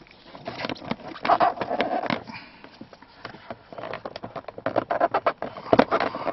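Hands working the plastic steering-column and dash trim: irregular clicks and knocks of hard plastic, coming in a quick run near the end.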